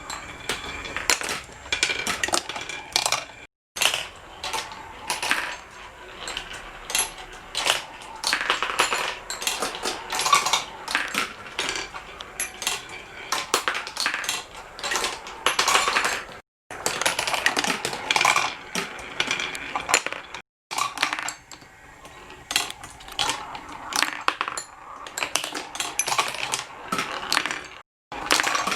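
Marbles clicking and clattering along a mini marble run's tracks: a dense, fast patter of small hard hits and clinks, broken by a few brief silences.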